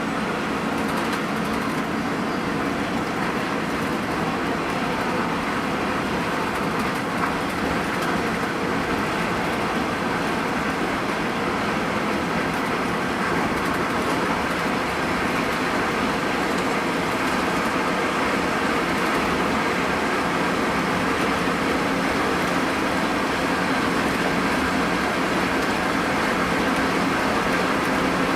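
Hino RN285 bus's diesel engine running steadily at cruise with road noise, heard from inside the moving coach. It gets slightly louder about halfway through.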